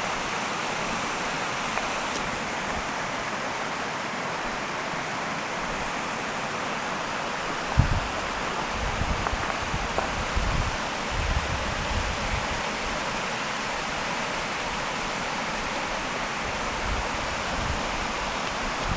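A 100-foot-plus mountain waterfall: a steady rush of falling water. Irregular low bumps come and go from about eight seconds in.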